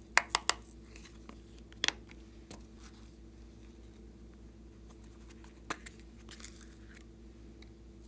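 Glossy slime being worked by hand, giving sharp sticky clicks and pops: three in quick succession at the start, a loud one about two seconds in, then a few scattered smaller ones and a soft crackle near the end.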